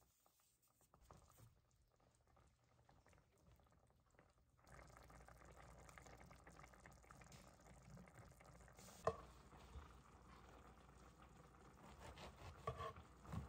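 Thick tomato sauce simmering in a pot, faint bubbling and popping. A sharp knock about nine seconds in, and a few smaller knocks near the end.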